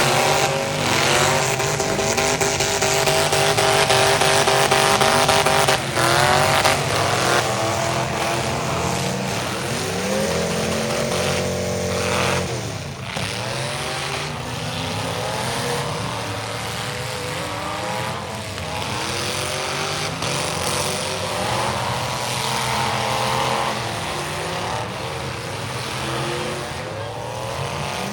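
Several demolition derby cars' engines running and revving at once, their pitches rising and falling over one another.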